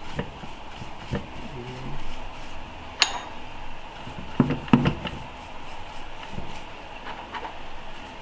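Light clinks and knocks of a pastry brush dabbing melted butter from a small bowl onto a waffle iron's plates, with a sharp click about three seconds in and two louder knocks near the middle.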